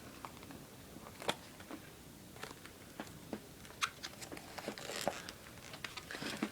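Hands working at opening a Zippo hand warmer and its packaging: scattered small clicks and taps with a little light rustling, the opening proving hard.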